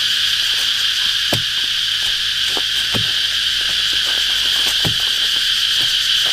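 A steady, high insect chorus drones on without a break. A few short knocks come at uneven intervals over it.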